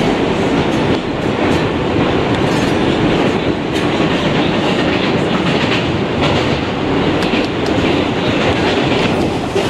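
R142 subway car running along the track, heard from inside the car: a loud, steady rumble of wheels on rail with faint clicks over the rail joints.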